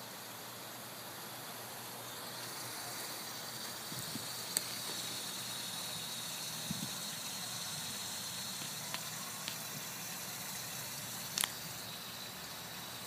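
Steady rushing hiss of a small waterfall, with a few short sharp clicks, the sharpest about four and a half and eleven and a half seconds in.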